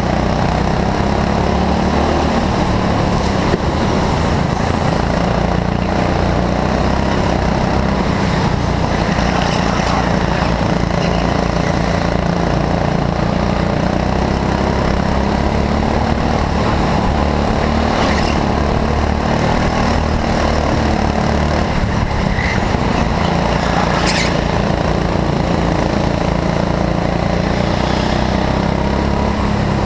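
Go-kart engine running steadily at speed, heard close up from a camera mounted on the kart.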